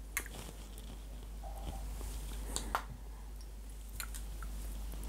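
Perfume atomizer sprayed onto skin: two short hisses in quick succession about two and a half seconds in, between light handling of the glass bottle.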